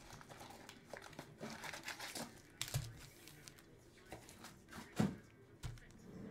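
Plastic packaging crinkling and tearing as trading-card boxes and packs are opened by hand, with a few sharp knocks, the loudest about five seconds in.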